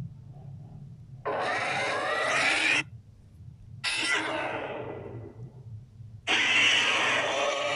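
Custom monster sound effects: three long, animal-like creature calls. The first cuts off sharply after about a second and a half. The second fades away, and the third starts near the end and is held.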